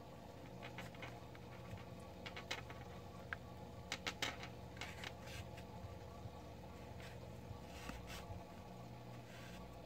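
Faint handling noise from closing a crocheted amigurumi head with a needle and yarn: small scattered ticks and rustles of fingers, needle and yarn, the loudest cluster about four seconds in, over a steady low hum.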